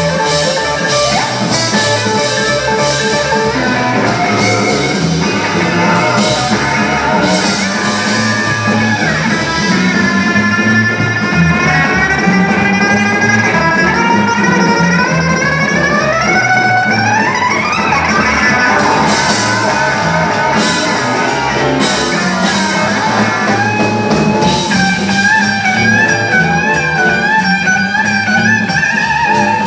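Live electric blues band playing an instrumental passage: a Les Paul-style electric guitar leads over drums, with a long line sliding steadily upward in pitch through the middle.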